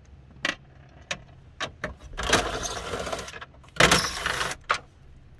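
Cordless drill with a 7mm socket backing out the gauge cluster's mounting screws, running in two short bursts of about a second each, with a few sharp clicks of the tool and screws between.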